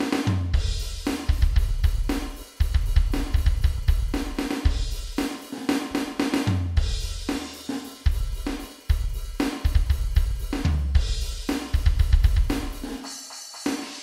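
Electronic drum kit played in a steady groove, with kick drum, snare, hi-hat and cymbal crashes, heard as the kit's drum sounds rather than the taps on the pads. The low end drops out briefly near the end.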